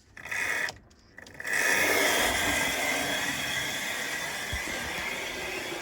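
Hornby B12 model locomotive running on the layout track: a brief burst of motor and wheel noise just after the start, then from about a second and a half in a steady whirring run with rail noise that eases slightly. Somewhat noisy, as expected of an early Hornby motor.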